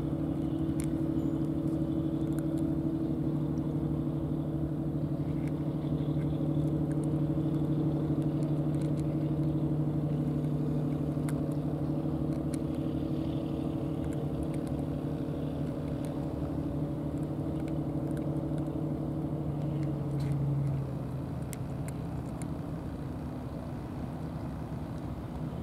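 An engine hums steadily out of view, its pitch and level dropping toward the end. Faint scattered ticks from a cat crunching dry kibble sound over it.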